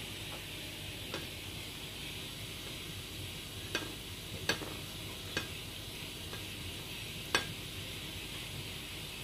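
Steady hiss of chicken frying in oil, with several sharp clicks as flour-coated chicken pieces are handled in a bowl of beaten egg; the loudest click comes about seven seconds in.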